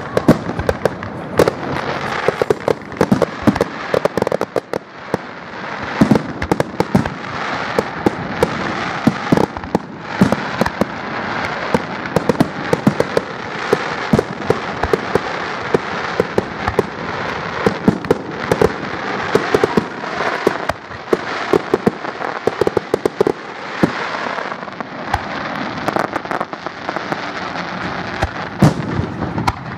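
Aerial fireworks shells bursting one after another in a dense, continuous string of sharp bangs.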